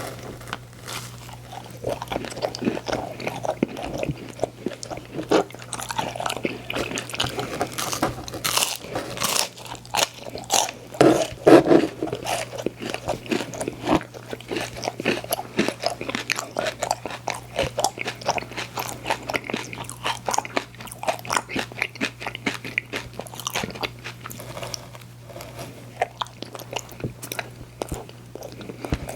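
Close-up biting and chewing of a frozen ice cream sandwich: a dense run of quick crunches, with the loudest bite about eleven seconds in.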